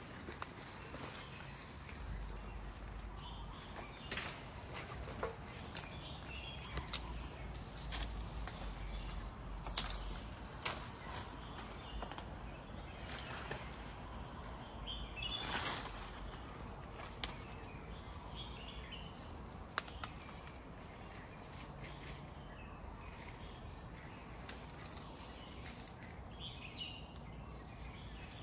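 Steady high-pitched insect chirring, with scattered sharp clicks and rustles of a rope being handled and tied around a tree branch.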